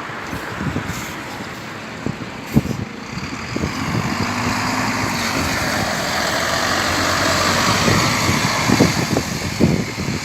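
A motor vehicle engine running amid road traffic noise, its note rising and falling gently around the middle, with a few light knocks.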